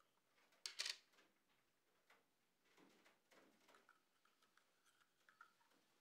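A metal screw lid coming off a small glass jar, with a short sharp scrape about a second in. Fainter scraping and tapping follow as a spoon goes into the jar's thick contents.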